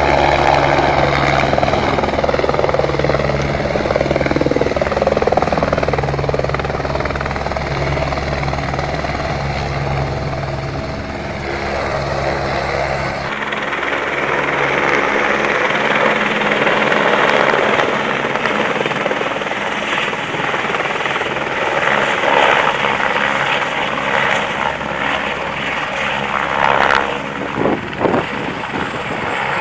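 Helicopter's rotor and turbine engine running close by as it hovers and lifts over the pad: a steady low rotor beat with an engine hum for about the first thirteen seconds. It then changes abruptly to a broader rushing whine as the helicopter flies in low, with a few brief knocks near the end.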